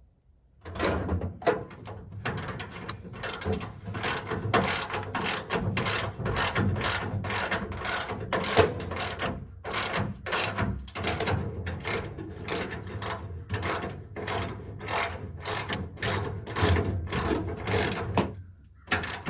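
Ratchet wrench tightening the rear bumper bolts, clicking in quick strokes about twice a second. It starts about a second in and stops just before the end, with one last stroke at the close.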